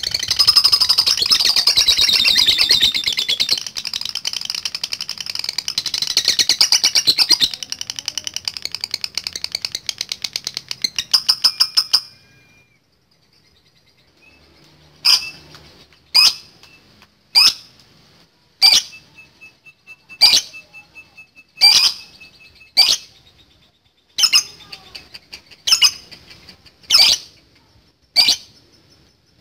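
Lovebird giving a long, fast chattering trill ('ngekek') for about twelve seconds, ending in a quick run of rapid pulses. After a short pause it switches to sharp single calls repeated about every second and a half.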